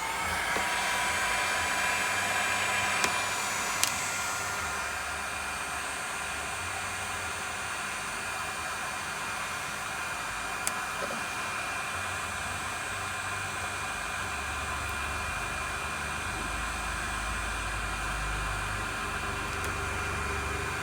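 Heat gun running steadily, blowing hot air. Its fan whine rises over the first second as it comes up to speed, then holds a steady pitch. The hot air is heating the phone part to loosen it for removal.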